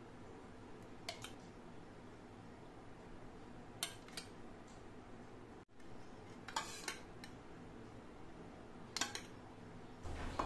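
A metal spoon tapping and clinking lightly against a steel bowl and plate as yogurt is scooped and poured: four faint groups of short taps a few seconds apart.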